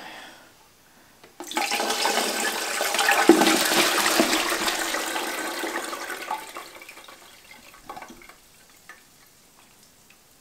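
Sweet pickle syrup pouring from a tipped glass jar through a colander into a stainless steel pot. The pour starts about a second and a half in, runs at full flow for a few seconds, then thins to a trickle and a few drips.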